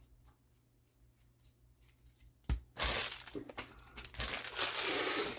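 A knock about two and a half seconds in, then a trading-card booster pack's foil wrapper tearing open and crinkling for a couple of seconds.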